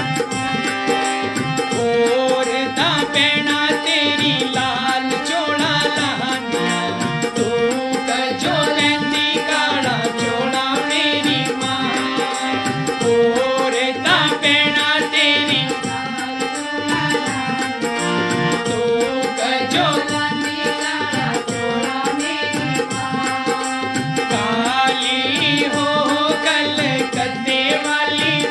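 Hindi devotional bhajan: a harmonium playing the melody with drum accompaniment and a man singing.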